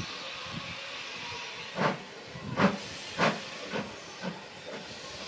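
Ivatt Class 2MT steam locomotive 46447 hissing steam, then starting away with six exhaust chuffs that come quicker and grow fainter.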